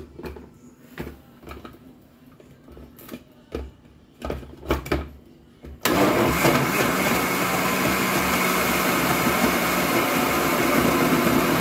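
Several knocks and clicks as the plastic jar of a countertop blender is handled on its base, then about halfway through the blender motor switches on and runs steadily, blending a liquid mix of durian flesh and milk.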